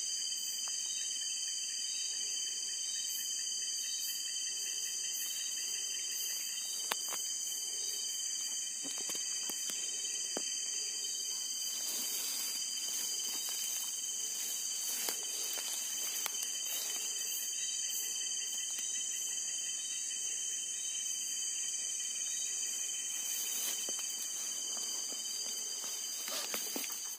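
Steady chorus of crickets and other night insects, several high continuous trills layered together, with short brushing and rustling of grass and leaves now and then.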